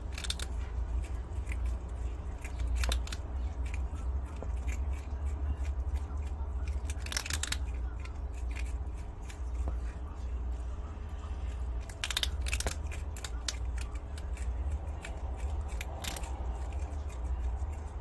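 Prairie dog nibbling and crunching a piece of dry food held in its paws: quick runs of small crisp crunches, over a steady low hum.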